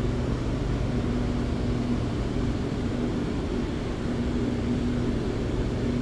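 Inside a C751B electric train car while it runs: a steady low rumble and hum, with a low tone that fades in and out every second or so.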